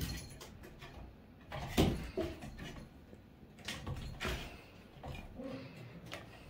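A mink clambering up a rope-wrapped cat tree: a few scattered thumps and scuffs from its paws and claws on the posts and platforms, the loudest about two seconds in.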